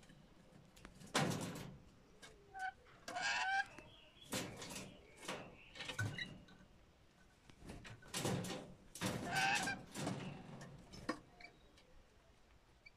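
Rainbow lorikeets (Blue Mountain lorikeets) screeching: about a dozen short, harsh calls in clusters, with a quieter stretch at the end.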